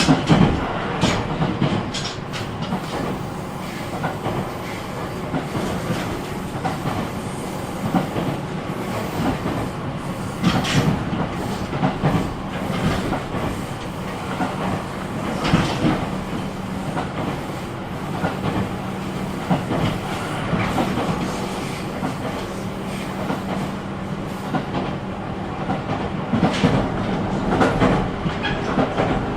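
Running sound heard inside a JR 313 series electric train car: the wheels rumble on the rails, clicking irregularly over rail joints, with a steady low hum through the middle stretch.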